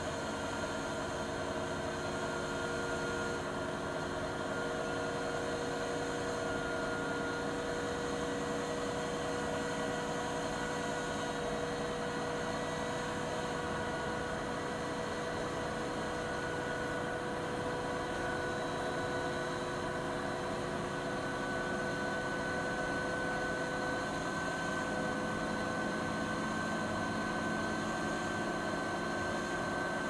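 Siemens iQ300 front-loading washing machine with an iQdrive motor in its spin cycle: a steady hum and whine of drum and motor, its tones edging slightly higher in pitch across the stretch.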